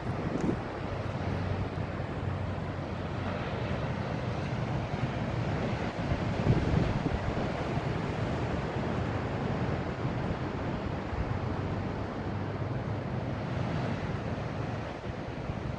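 Ocean surf washing in steadily, with wind rumbling on the microphone and a slight swell in level about six seconds in.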